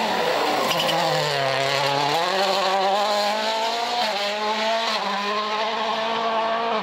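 World Rally Car's turbocharged four-cylinder engine at high revs: the note drops as the car slows in the first second or so, climbs again a little after two seconds as it accelerates, then holds high with small shifts in pitch.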